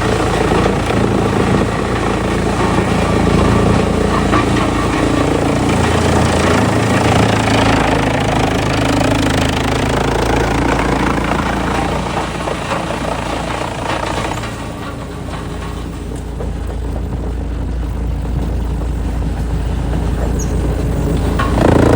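Heavy engine-driven machinery running steadily with a low engine hum under a loud, dense noisy layer. About fourteen seconds in the noise eases off, leaving mostly the low engine drone, and a loud sudden burst comes right at the end.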